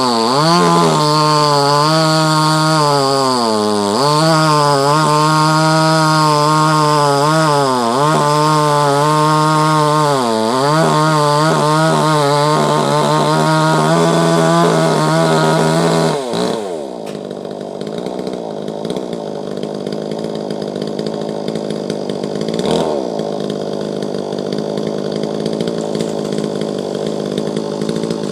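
Two-stroke chainsaw running at full throttle, its high engine note dipping and recovering several times as it bogs under load in wood. About sixteen seconds in the throttle is released and the note falls to a quieter, lower running speed, with one short rev later on.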